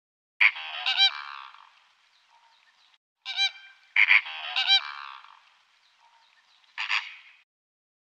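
Flamingo honking: loud, goose-like nasal calls in three groups, several quick honks in each, each group trailing off in an echo.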